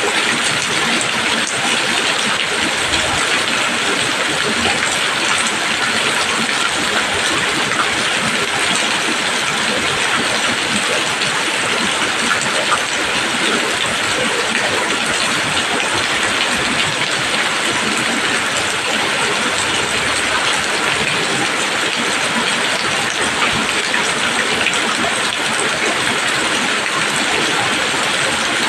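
Steady tropical rain falling on leaves: a continuous even hiss of many small drops, unchanging throughout.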